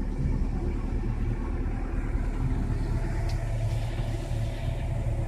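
Volvo EC210 crawler excavator's diesel engine running steadily, a low even drone while the machine travels.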